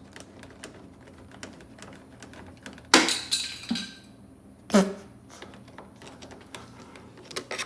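Small clicks and rattles of metal and plastic parts being handled in a car door, with two sharp metallic clinks that ring briefly, about three seconds and five seconds in.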